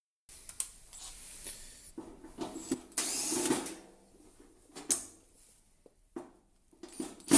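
A cordless drill-driver runs briefly, about three seconds in, backing screws out of the bottom trim of an electric panel heater. Scattered clicks and knocks of screws and handling come before and after.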